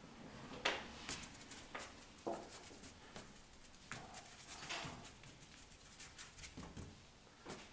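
Paintbrush strokes and dabs of thick paint on paper: quick scratchy swishes and small taps, several a second, the sharpest less than a second in.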